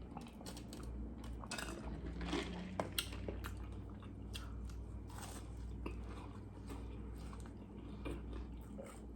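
A person chewing food with scattered small crunches.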